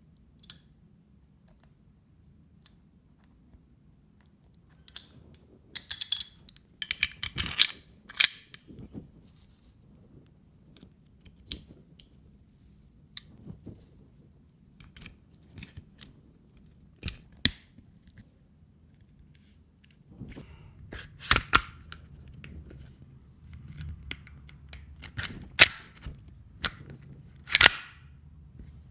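Sharp metallic clicks and snaps of a gas airsoft Glock 19 Gen 5 pistol being worked by hand during cleaning and maintenance, coming irregularly: a quick cluster about six to eight seconds in, then single and paired snaps spaced a few seconds apart.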